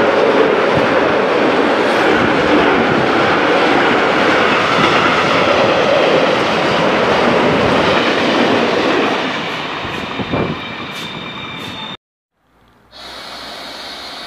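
Car-carrier freight wagons loaded with vans rolling past close by: loud, steady wheel-on-rail noise that eases off after about nine seconds, with a few clicks and a thin high squeal near the end. After a brief cut to silence, a quieter sound of a double-deck regional train at a station begins.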